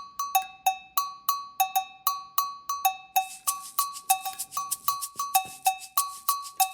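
Background music: a looping pattern of short, bell-like percussive notes alternating between two pitches, about three a second, with a brighter layer joining about three seconds in.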